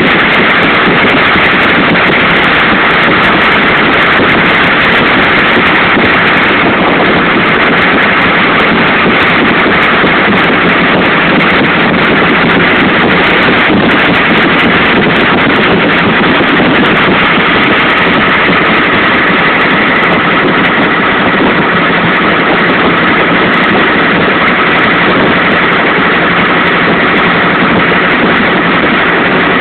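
A boat's engine running steadily, heard from on board, an even loud drone with no change in speed.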